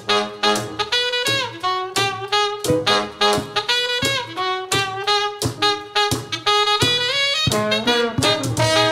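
Live band playing an instrumental passage with a saxophone lead over steady percussion; sustained held notes come in near the end.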